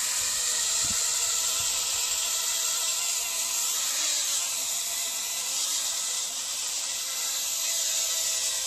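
Hubsan X4 micro quadcopter's four small motors and propellers buzzing steadily as it hovers, the pitch wavering a little with the throttle.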